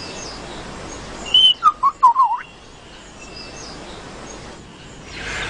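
Lyrebird singing a short whistled phrase about a second in: one high note, then a quick run of wavering lower notes, over faint forest background hiss.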